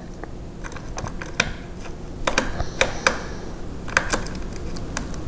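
Phillips screwdriver turning out a tight screw that holds a laptop's hard-drive bracket: a series of small, irregular clicks and ticks as the screw works loose.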